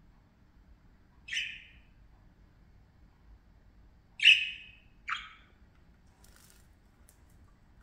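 Budgerigar (pet parakeet) giving three short, sharp chirping calls: one about a second in, then a louder one about four seconds in, followed quickly by a third.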